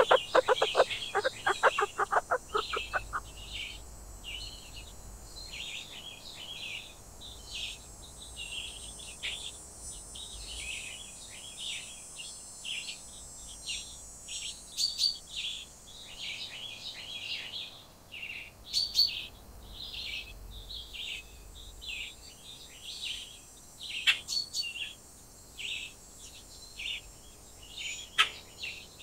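Many small wild birds chirping and calling on and on in short, high notes. For the first three seconds a louder, rapid chattering call is repeated many times a second. A few sharp clicks come later.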